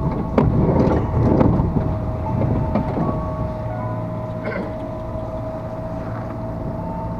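Interior noise of a crowded electric commuter train on the move: a low rumble with a few sharp knocks in the first two seconds, then a steadier hum under a constant high whine.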